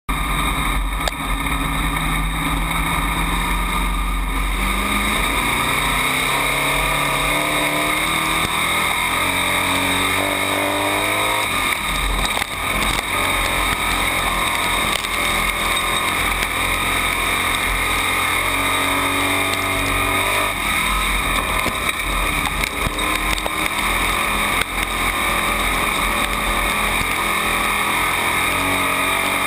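Dirt-track race car engine heard from inside the cockpit at racing speed, its pitch climbing on the straights and dropping off into the turns, lap after lap. A steady high buzz and a heavy low rumble run under it.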